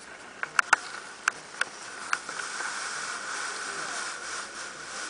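A few sharp clicks in the first two seconds, then a steady rustle as a hand strokes a pet rat's fur close to the microphone.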